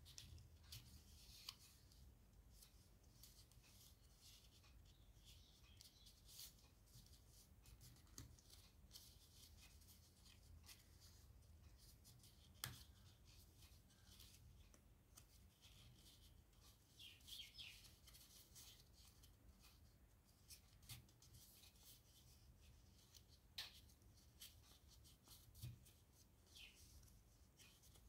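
Faint rustling and crinkling of origami paper being folded and creased by hand, with scattered small ticks.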